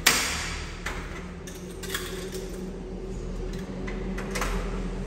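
Metal clicks and clinks from a screen door's lock hardware being fitted with hand tools. A sharp loud click comes right at the start and a few fainter ones follow, over a low steady hum.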